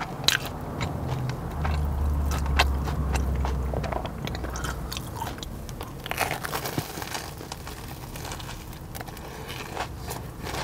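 Close-miked crunching and chewing of a sugar-coated Korean corn dog, its crisp fried batter crackling in short irregular bites. A low rumble sits under it for a couple of seconds near the start.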